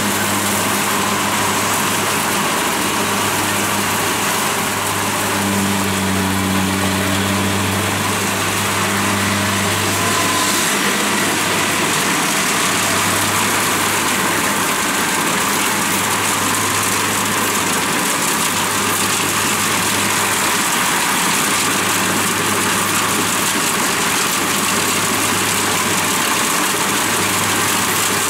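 Kubota DC70 Plus combine harvester running steadily as it cuts and threshes lodged rice: a continuous engine and machinery hum, its low drone swelling slightly for a few seconds about a fifth of the way in.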